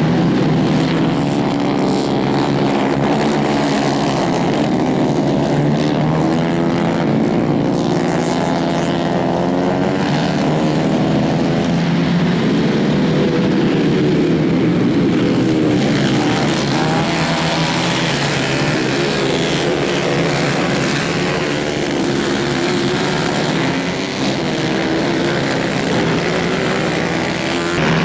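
Several 150 cc racing kart engines running together at high revs. The pitch keeps rising and falling as the karts accelerate out of corners and lift off into them.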